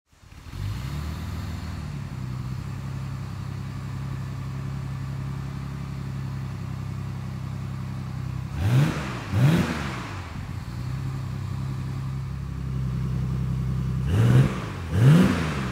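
1982 Holden VH Commodore's engine idling steadily through a large exhaust pipe. It is revved twice in quick succession about nine seconds in and twice again near the end, each rev rising and dropping back quickly.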